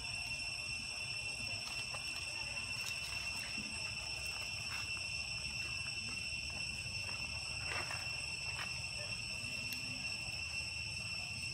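Steady, high-pitched insect drone holding one pitch without a break, over a low rumble, with a few faint ticks.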